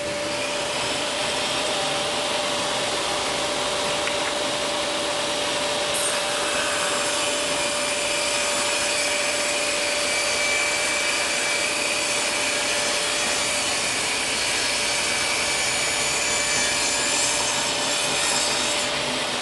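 Total TS5152542 10-inch table saw running with a steady, even whine while its blade cuts a wide wooden board fed along the fence, the rasp of the cut heard throughout.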